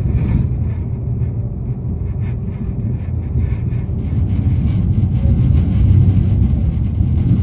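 Inside the carriage of a moving Renfe Class 120 (CAF) variable-gauge train: a steady low running rumble with many short clicks and knocks from the carriage rattling a lot.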